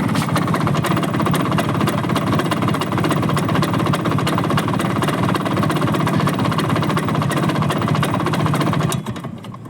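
Bajaj Chetak scooter's two-stroke single-cylinder engine running steadily with an even, rapid pulsing beat. It cuts off sharply near the end.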